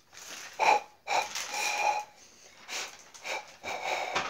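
A child's breathy puffs close to the microphone, several short ones and one longer one about a second in that carries a thin steady tone.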